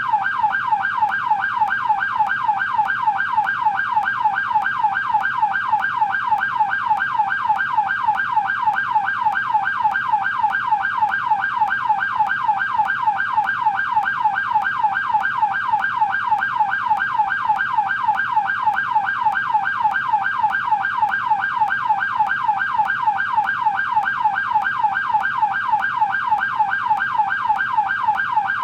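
American police car siren on its yelp setting: a rapid, steady up-and-down wail repeating about four times a second.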